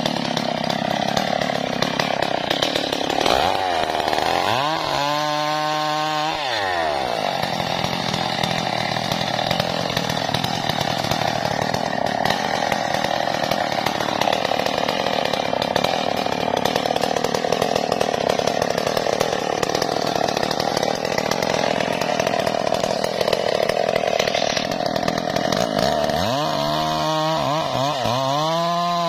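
Stihl MS 381 two-stroke chainsaw running, revving up and back down a few seconds in, then cutting steadily into the base of a hard tree trunk. It revs up again near the end.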